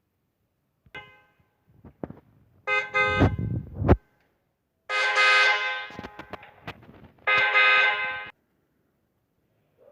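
Vehicle horn honking: a short faint toot about a second in, then three loud blasts of about a second each, the first with a low rumble beneath it.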